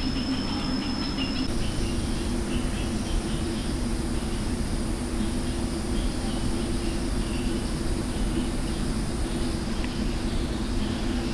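Forest ambience: a steady insect drone with scattered faint bird chirps.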